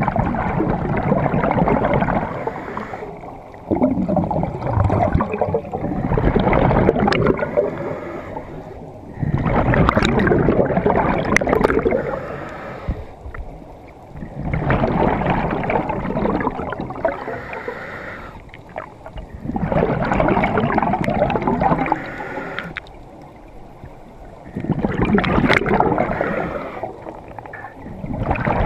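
Scuba regulator breathing heard underwater: about six surges of exhaled bubbles rumbling and gurgling, each two to three seconds long and coming roughly every five seconds, with quieter pauses between breaths.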